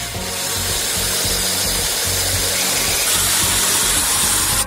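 Electric drill running, its bit cutting into a metal bolt clamped in a vise: a steady hissing cut that cuts off suddenly at the end.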